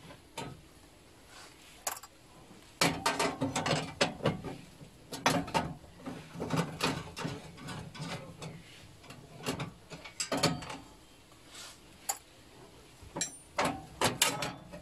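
Ratchet wrench on a long extension clicking in several short runs as the nuts holding a hybrid battery pack's upper metal cover are undone.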